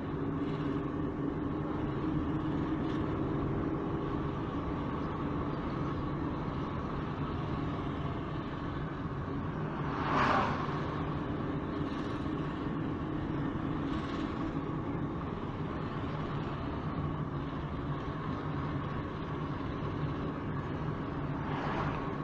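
A vehicle driving along a street: a steady low engine hum and road noise, with a brief louder rush about ten seconds in and a fainter one about four seconds later.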